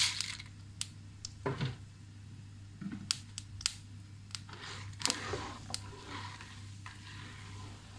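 Scattered sharp pops and ticks from a pan of hot sesame oil with mustard seeds, urad dal and chana dal frying in it, and a spatula stirring now and then, over a steady low hum.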